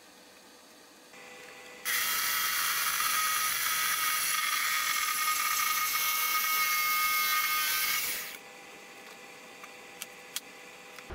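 Handheld electric power tool running at speed with a steady high whine for about six seconds, then switched off, cutting a plywood template. A couple of light knocks near the end.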